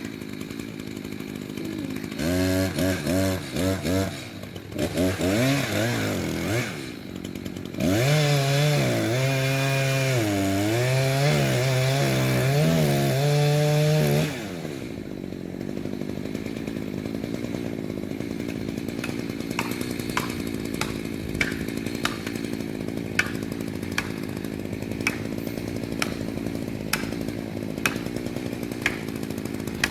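Two-stroke chainsaw revving in short blips, then held at high speed for about six seconds with its engine note dipping and recovering as it cuts under load. About halfway through it drops back to a lower, steady running, with a series of light, regular ticks.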